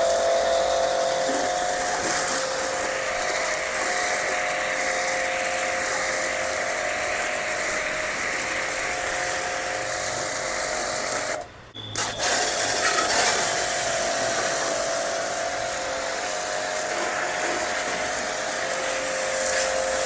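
StarQ ST-25 electric pressure washer running, its motor and pump whining steadily under the hiss of the soap-dispenser spray as foam goes on. About halfway through it cuts out for half a second and starts again.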